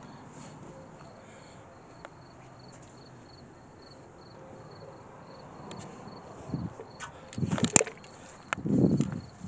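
Crickets chirping steadily and faintly. In the last few seconds come footsteps on gravel and dry grass, several heavy steps with a sharp click near the end.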